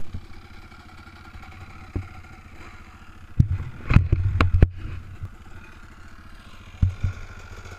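Dirt bike engine idling steadily, with scattered loud knocks and clatter, bunched together about three and a half to four and a half seconds in.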